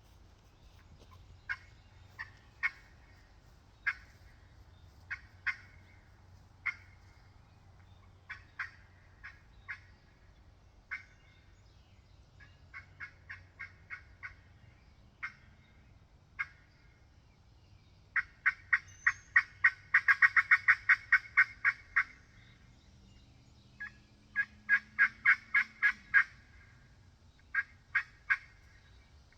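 Glass-over-yellowheart turkey pot call with a yellowheart pot, played with a wooden striker. Scattered single notes give way to runs of quick yelps, and the fastest, loudest run comes about two-thirds of the way through. The call is tuned for more rasp at the back end of its yelps.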